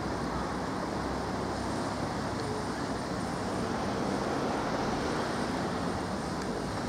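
Class 143 Pacer diesel railbus approaching slowly, its diesel engine running with a steady rumble and wheel noise, slowly getting louder as it nears.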